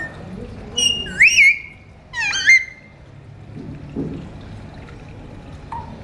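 Alexandrine parakeets whistling: a few loud, clear whistled notes that sweep up and then dip in pitch, in two quick bursts in the first half.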